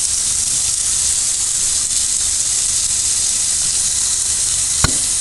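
Shower water running steadily into a bathtub, an even hiss of spray. One sharp click near the end.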